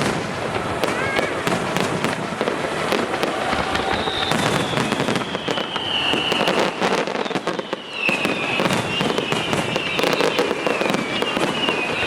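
Fireworks going off in quick succession: many bangs and crackles. From about four seconds in, several high whistling tones slide down in pitch over them.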